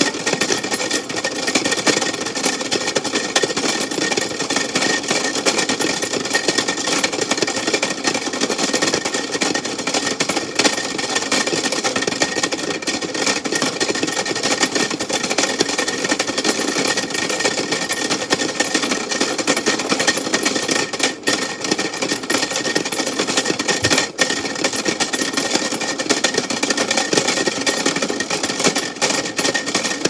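Toy Tide washing machine running, its small motor turning the water-filled drum: a steady, dense, rapid rattling buzz with a thin high whine through it.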